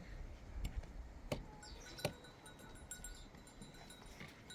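Three sharp knocks or clicks in the first two seconds over faint background noise, followed by a faint steady high tone.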